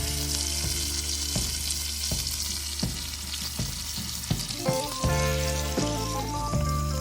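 Beef burgers sizzling as they fry in a pan, a steady hiss. Background music plays underneath and grows louder near the end.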